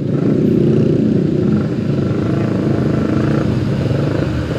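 Motorcycle and scooter engines running in slow, jammed traffic: a steady engine drone with no break.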